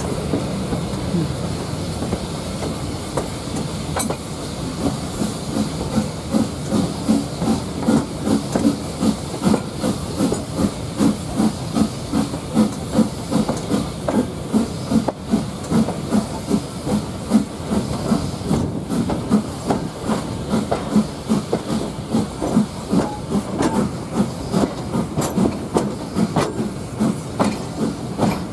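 LSWR S15 class 4-6-0 steam locomotive working steadily, heard from a carriage behind it: a run of regular exhaust beats, about two a second, over steam hiss and the rumble of the train on the rails.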